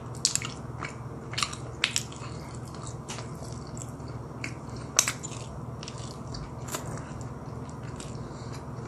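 Close-miked chewing and biting of a soft pastry, with a scatter of short sharp mouth clicks and crisp bites, the loudest about five seconds in.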